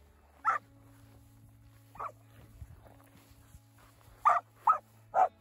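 Young hanging tree cowdog barking at cattle: five short barks, one about half a second in, one around two seconds, then three in quick succession near the end.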